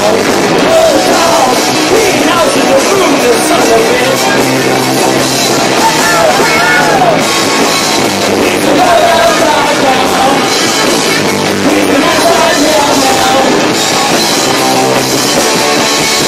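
Live punk rock band playing at full volume: electric guitars, bass and drums, with a voice singing over them. The camcorder microphone overloads on the volume, so the whole sound is distorted.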